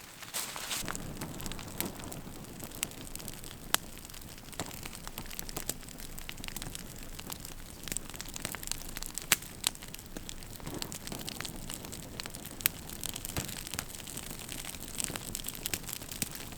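Small campfire of birch bark, twigs and punky wood crackling as it catches, with a steady hiss and frequent sharp, irregular pops.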